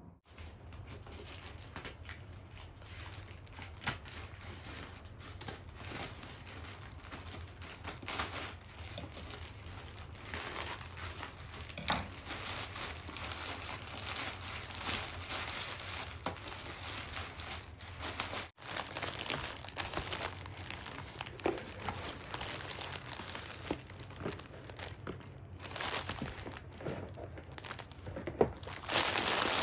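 Plastic mailer bag and the clear plastic wrapping inside it crinkling and rustling as a parcel is opened by hand, louder near the end.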